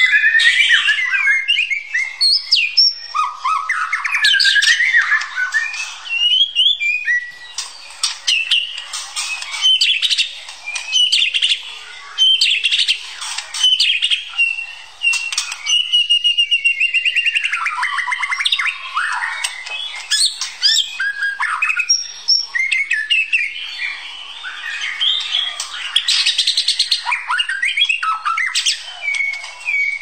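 White-rumped shama (murai batu) singing almost without pause: a long, varied song of rising and falling whistles and sweeps, broken by stretches of rapid rattling notes.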